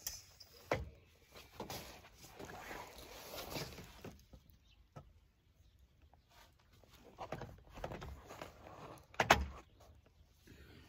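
Supapeg Rapid Wing 5 270-degree awning being folded away by hand: the canvas rustles and its arms knock now and then, with a knock just under a second in and a louder one near the end.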